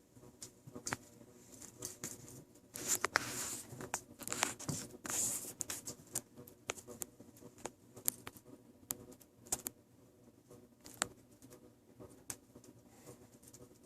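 RagaMuffin kittens playing: a scatter of light clicks, patter and scratching from paws and claws, with a few short bursts of rustling.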